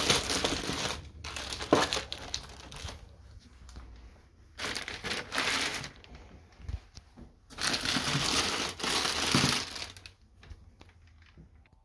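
Plastic packaging bag crinkling as it is pulled off a new printer, in three long bursts: one at the start, one about five seconds in and one about eight to nine seconds in, with fainter rustling between them and near the end.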